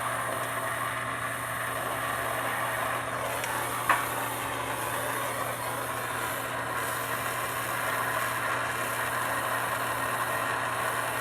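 Handheld plumbing torch flame burning steadily with a continuous hiss while a copper pipe joint is heated for soldering. There is one short click about four seconds in.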